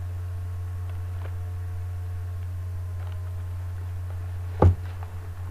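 A steady low electrical-sounding hum with a few faint ticks of a box and tissue paper being handled, and one sharp knock of handling about four and a half seconds in.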